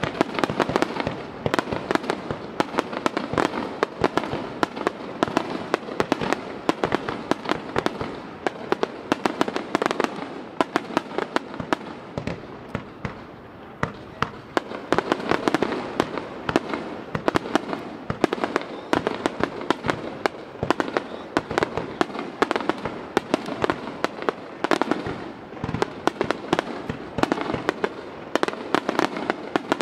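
Aerial fireworks bursting in a dense, continuous barrage: many bangs and crackles a second, with louder booms standing out here and there.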